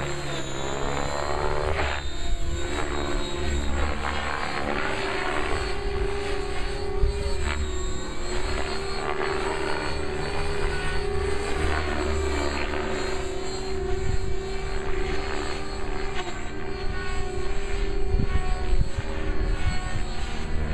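Compass 6HV electric RC helicopter in flight: a steady whine of the motor and rotor blades, with higher sweeps that rise and fall as it manoeuvres.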